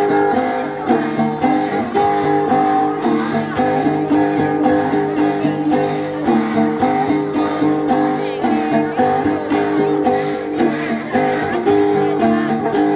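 Folk dance music with a plucked string instrument playing a repeating melody over a steady beat.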